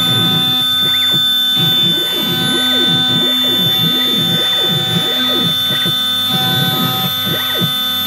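CNC engraver engraving a billiard cue: a steady spindle whine and hum, with the axis motors whirring in short rising and falling glides over and over as the head moves.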